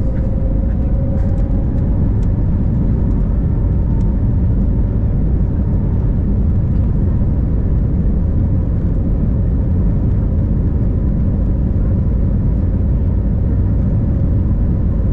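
Steady, loud cabin rumble of an Airbus A321neo airliner, with engine and airflow noise heard from inside the cabin and faint steady engine tones above it.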